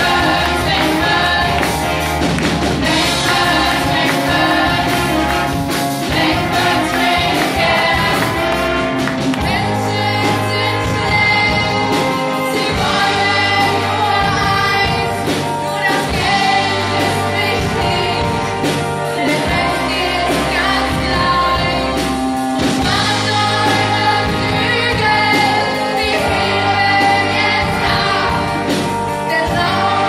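A musical's cast singing together as a chorus over a live pop band, with a steady beat and bass line.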